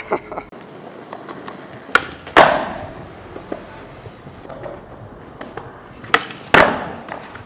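Skateboard wheels rolling on smooth concrete, broken twice by a pair of sharp cracks, once about two seconds in and again about six seconds in. Each pair is a trick being popped and landed, and the second crack of each pair is the louder.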